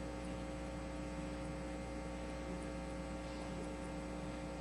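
Steady electrical hum with a faint hiss and no speech: room tone.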